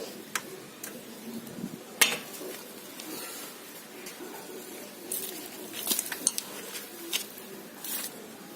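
A screwdriver is clinking and scraping against a car's front brake caliper and worn brake pad as the pad is pried back to push the caliper piston in. The metallic clinks are scattered, with the sharpest about two seconds in and a cluster after about five seconds.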